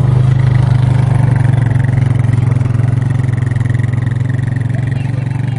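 A large engine running steadily close by: a loud, low, even sound with a fast pulse and no change in speed.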